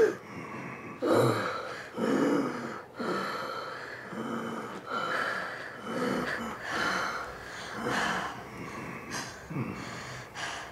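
A wounded man's laboured, gasping breathing, a heavy breath about every second, some of them voiced like a faint moan.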